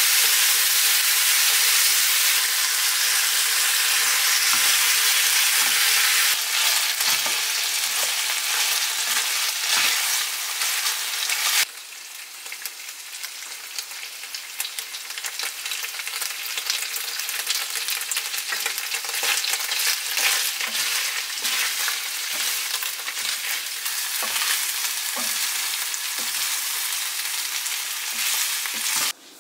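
Pork and onions in a spicy red pepper sauce sizzling in a frying pan as they are stir-fried, with utensils clicking and scraping against the pan. The sizzle drops abruptly about twelve seconds in, and the stirring clicks carry on.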